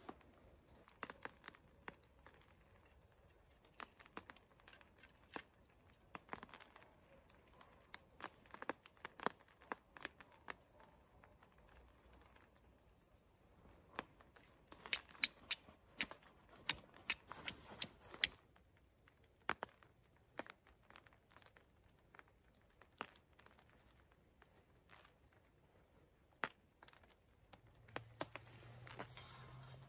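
Dry tinder and wood shavings being crumpled and torn by hand, a scatter of small crackles and clicks that grows busiest and loudest about halfway through.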